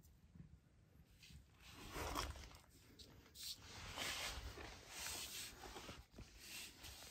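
A few soft rustles of a cat's fur brushing and sliding on a smooth floor as it shifts and rolls over, the loudest about two seconds in and again around four to five seconds in.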